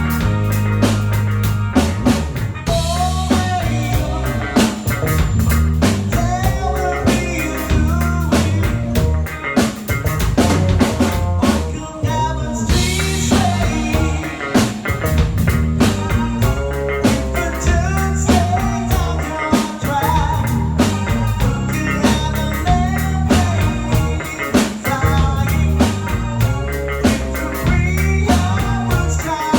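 A band playing a rock song: a drum kit keeps a steady beat with rimshots over a strong bass line, with guitar and a wavering melody line on top.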